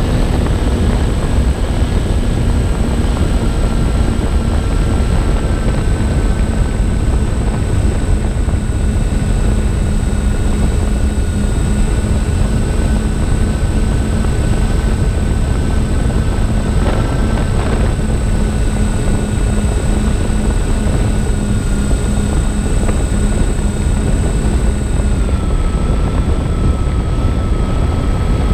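Twin electric motors and propellers of a MyTwinDream FPV plane whining in cruise, heard from on board over heavy wind rush. The whine's pitch sags slowly and drops a little near the end, with a thin steady high whistle underneath.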